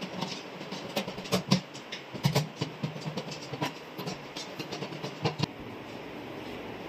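Irregular metallic clicks and scrapes of a hand screwdriver driving screws into the rear mounting holes of a flat-screen TV to hold a wall-mount bracket. The clicks stop about five and a half seconds in.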